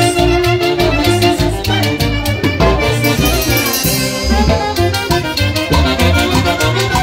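A live Peruvian orquesta playing Andean huayno dance music: saxophones and clarinet carry the melody over a steady drum-kit beat of snare and bass drum. A cymbal crash rings out about three seconds in.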